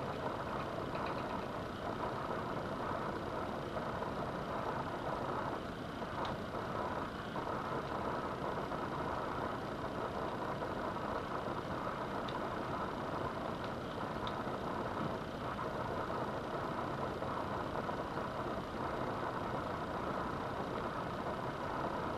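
Steady background noise, like a fan or machinery running, at an even level. A few faint, light metallic clicks come through it as a small flathead works at a stuck bearing on a fishing reel's shaft.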